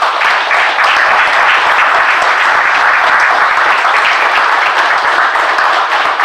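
Audience applauding, loud and steady, many hands clapping.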